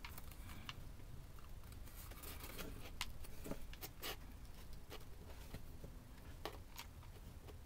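Faint, scattered clicks and light scrapes from a hot glue gun working along a board's edge as beads of glue are laid, a few sharper clicks in the middle and near the end, over a low steady hum.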